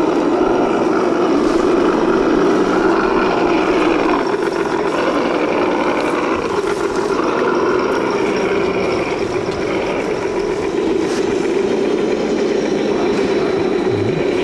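Electric motor and gear drivetrain of an Axial SCX10 RC crawler whining steadily as it crawls over rock and gravel. The whine wavers up and down with the throttle.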